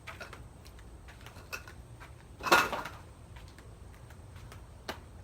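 Handling noise: scattered light knocks and clicks, with one loud clatter about halfway through and a single sharp knock near the end.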